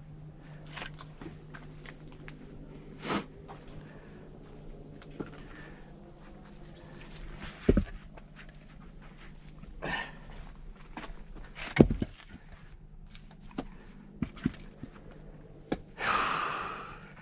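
Axe splitting firewood: two heavy blows about four seconds apart, among lighter knocks of wood. The splitter breathes hard and lets out a long exhale near the end.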